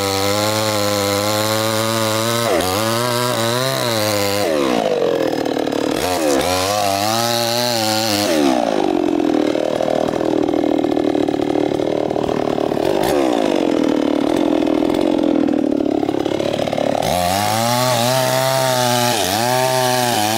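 Stihl two-stroke chainsaw at full throttle cutting into a coconut palm trunk, its engine pitch wavering under the load. The engine eases off and runs slower for several seconds in the middle, then is throttled back up to cut again near the end.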